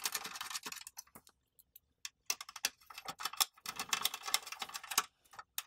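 Phillips screwdriver driving screws into the sheet-metal battery door of an APC Smart-UPS: a rapid run of small metal clicks and scrapes in two spells, the second longer, played at triple speed.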